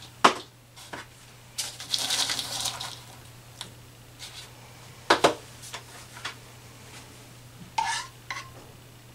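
Kitchen handling sounds from a plastic dumpling press and a small bowl on a countertop: a few sharp knocks, the loudest about a quarter second in and about five seconds in, and a scraping rustle for about a second, starting near the two-second mark, as filling is spooned into the dough.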